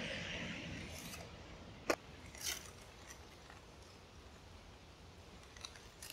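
Aluminium foil rustling and crinkling as it is opened by hand, with one sharp click about two seconds in and a short rustle just after.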